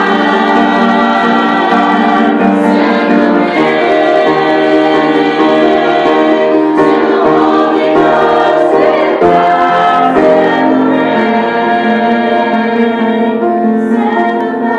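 A small mixed vocal group, mostly women's voices, singing a gospel song in harmony into handheld microphones, with long held notes.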